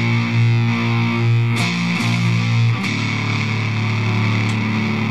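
Stratocaster electric guitar played through a Shrimp Pistol Stun germanium fuzz pedal with its texture knob turned to the right: thick, sustained fuzzed notes with a few picked attacks, moving to a different held chord about three seconds in.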